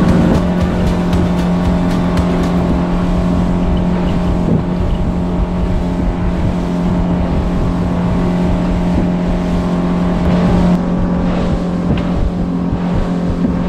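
Outboard motor running at steady cruising revs as the boat travels, a constant hum under wind buffeting on the microphone.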